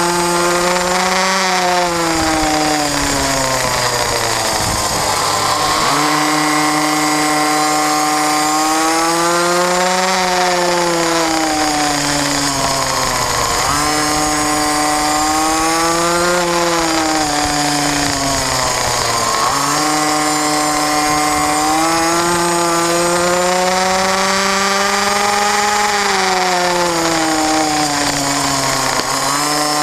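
Onboard sound of a small racing minibike's engine at race pace, its pitch climbing under acceleration and dropping as the throttle is backed off for corners, about four times, with a rush of wind and road noise under it.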